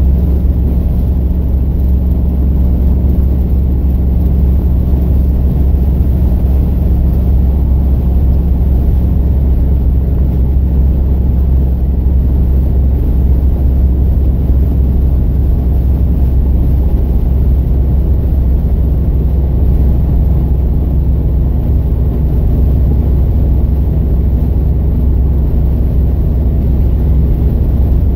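Interior drone of a Plymouth Scamp cruising steadily at highway speed: a loud, unchanging low rumble of engine, tyres and wind in the cabin, with no shifts or revving.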